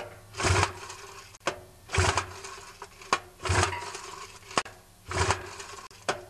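A 1962 Johnson 3 hp two-stroke outboard is cranked over with its recoil starter four times, about once every one and a half seconds. Each pull is a rasping whir, with a short sharp click between pulls. The cranking is for a compression test, and this cylinder shows low compression at about 70 psi.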